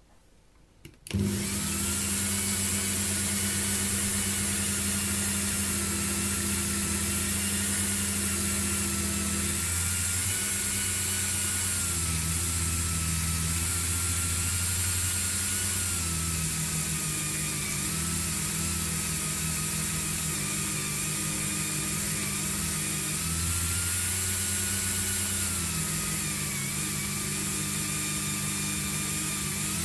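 Dremel rotary tool switched on about a second in and running steadily with a green abrasive polishing wheel fitted, a high whine over a low hum, the whine wavering slightly in pitch.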